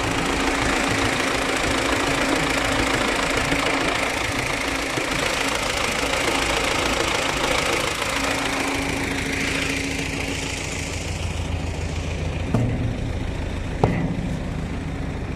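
T-40 tractor's diesel engine running steadily with a clattering hiss. About eight seconds in the sound changes: the hiss eases and a deeper hum comes up. Two short sharp knocks sound near the end.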